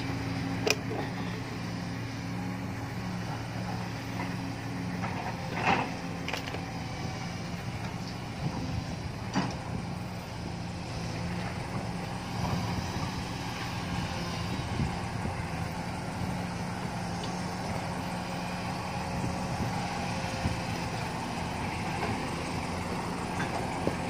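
Case Super L backhoe loader's diesel engine running steadily while the machine digs a trench. A few sharp clicks and knocks sound over it.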